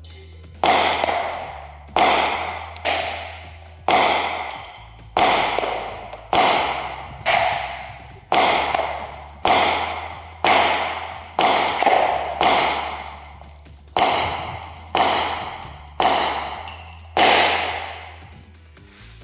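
ASG Bersa BP9CC CO2 blowback airsoft pistol firing about sixteen single shots, roughly one a second. Each shot is a sharp crack followed by a long echo off the walls of a large concrete hall.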